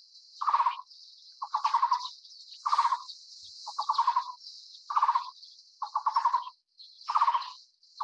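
Taiwan barbet song: a regular series of short, low trilled notes, about one a second, alternating between two note shapes, over a steady high hiss.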